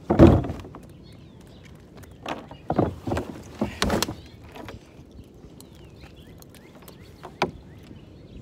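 A handful of irregular knocks and thumps over a faint steady background, the loudest right at the start and another near the end: handling noise from a phone held at arm's length while walking.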